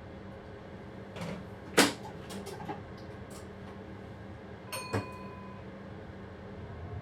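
Clicks and knocks inside a train driver's cab over a steady low hum: one sharp knock about two seconds in, a few lighter clicks after it, and a short ringing metallic clink around five seconds in.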